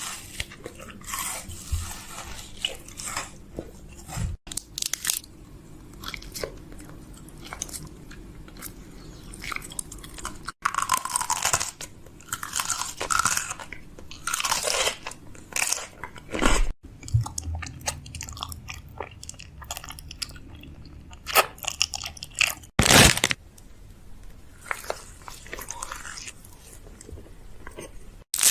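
A person biting and chewing crunchy food: irregular crunches, with a few louder bites.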